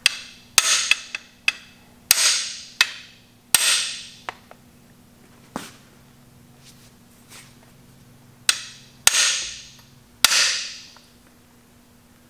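A lightweight bodywork hammer strikes the end of a cam bearing installation tool's steel driver bar, driving a camshaft bearing into an engine block. About a dozen sharp metallic hits, several ringing on for up to a second, with a pause of about three seconds midway.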